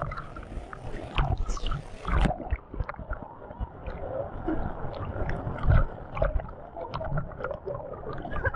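Rough water churning and splashing right at a waterproof action camera, with low thumps as waves slap the housing. A little over two seconds in the sound turns duller, losing its hiss.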